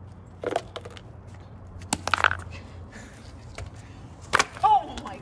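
Gingerbread house being smashed: a few separate sharp cracks and crunches of hard gingerbread breaking under a small wooden mallet and stomping feet, about half a second in, around two seconds in, and a quick pair near the end.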